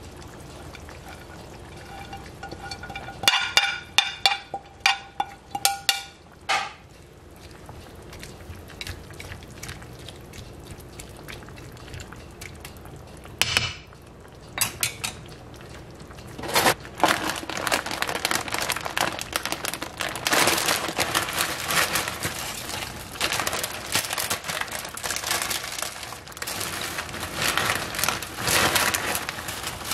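A utensil scraping and clinking against a ceramic plate several times a few seconds in, each clink ringing briefly, as shredded cabbage and carrot are pushed off it into the pan, with one more clink a little later. From about halfway on, a dense crackling and rustling.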